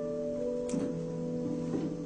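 Slow, quiet background music of held notes, with the pitches shifting every half second or so.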